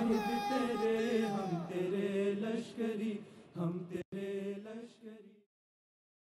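A crowd of men chanting together on a melody, with long held notes. It drops out for an instant about four seconds in and fades away about a second later.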